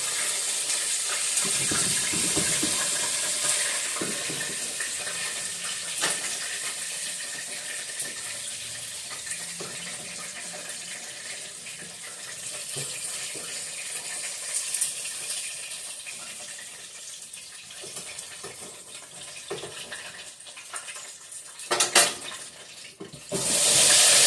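Kitchen noise during frying: a steady hiss that slowly grows fainter, with a few sharp clinks. Near the end a much louder hiss starts suddenly and keeps going.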